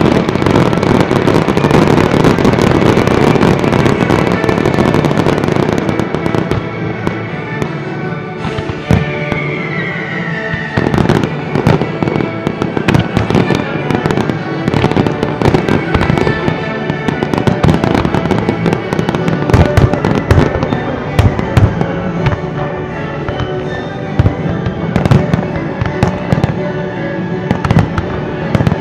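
Aerial firework shells bursting in quick succession over a music soundtrack, with a dense run of bangs in the first several seconds, then more spaced reports. A falling whistle sounds about nine seconds in.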